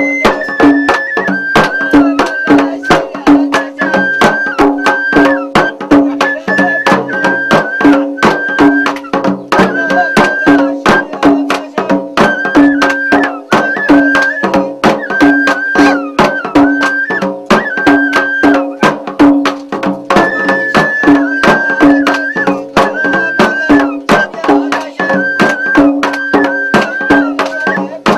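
Traditional folk music: a fast, even beat of sharp percussive clicks over a steady low drone, with a high melody in short repeated phrases.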